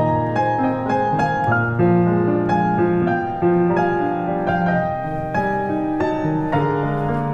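Background piano music, a steady stream of struck notes over sustained low bass notes.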